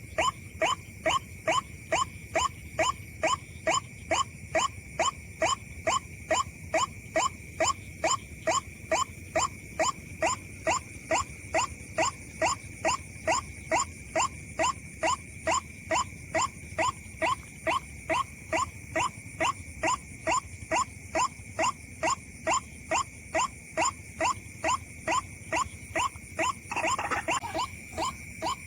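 Rapid, very even croaking calls of a white-breasted waterhen (ruak-ruak), about two and a half a second, each note falling in pitch, over a steady high whine.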